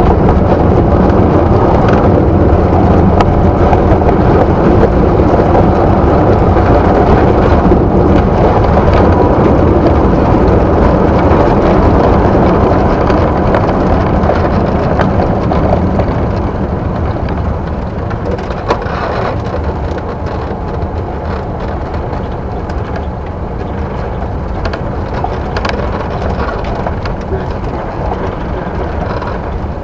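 Jabiru J430's air-cooled six-cylinder engine and propeller droning loudly inside the light aircraft's cockpit, mixed with rushing air. It gets noticeably quieter a little past halfway, with scattered short knocks and rattles after that.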